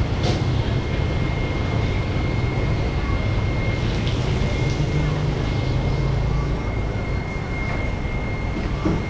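Steady background noise of an indoor market: a low rumble with a faint, unchanging high whine running through it.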